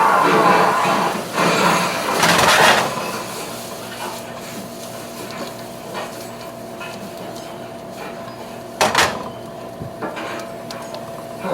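Dishes and cutlery clattering, busiest in the first few seconds, with a sharp knock about nine seconds in, over a faint steady hum.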